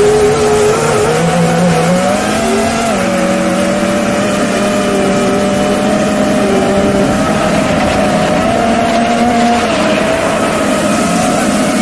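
FPV racing quadcopter's electric motors and propellers whining, heard from the camera mounted on the drone. Several tones drift up and down together with the throttle over a steady rush of air.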